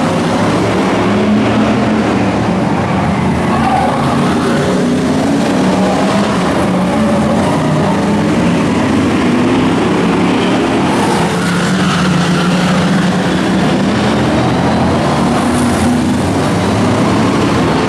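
Several heritage F1 stockcars' V8 engines running hard around a short oval, engine pitch rising and falling as the cars lap and slide through the bends.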